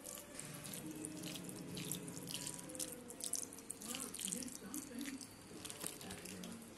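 Water pouring into a bowl of crushed cotton seeds as they are washed, with irregular small splashes and trickling.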